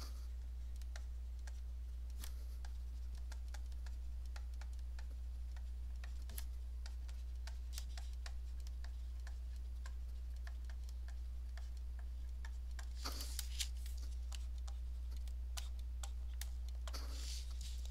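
Stylus on a tablet screen while handwriting: a scatter of faint light ticks and taps, with short bursts of scratchy strokes, over a steady low hum.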